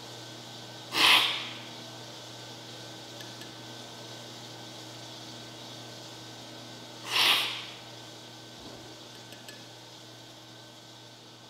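Two loud, short slurps of coffee from a cupping spoon, about six seconds apart. This is the forceful aerating slurp that spreads the coffee over the palate to judge it during cupping.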